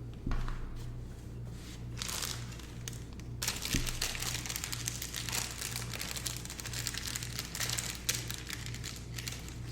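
Crinkling, rustling handling noise from the shelf's hardware and packaging being handled, thicker and busier from about three and a half seconds in, after a soft knock just at the start.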